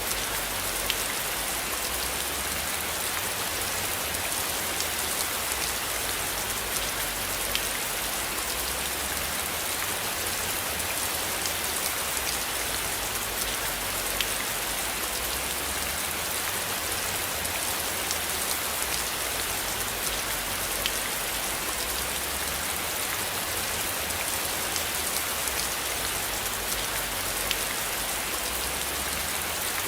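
Steady rain falling: an even, constant hiss with scattered faint ticks of individual drops.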